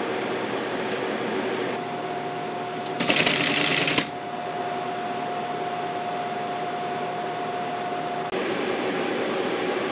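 Teletype ASR 33 clattering for about a second as it types a short line, about three seconds in, over a steady mechanical whir and hum from the running machines. The typed line is the BASIC "READY" prompt.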